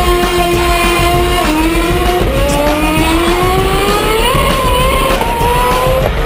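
Lotus Formula 1 car's Renault V8 engine accelerating away, its pitch climbing and dropping back at each of several upshifts, with music underneath.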